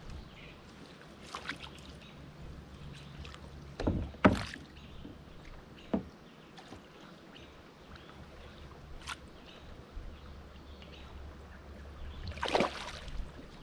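Small knocks and bumps on a fishing kayak, the loudest two about four seconds in, with water lapping and a short swish of water near the end over a low steady rumble.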